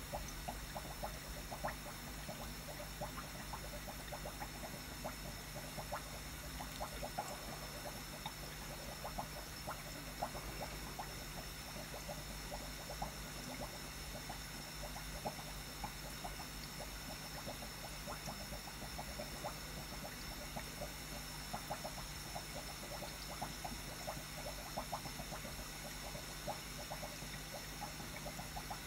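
Aquarium filter in a fish tank: a stream of small, irregular bubbling pops, several a second, over a steady low hum.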